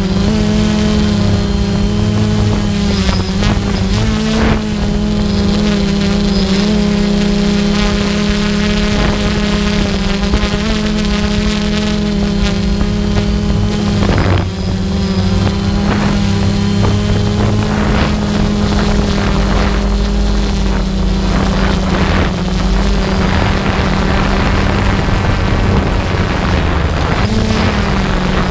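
Steady drone of the motor and propellers of the small aircraft carrying the camera in flight, one held pitch with a brief dip about halfway, with wind rushing over the microphone.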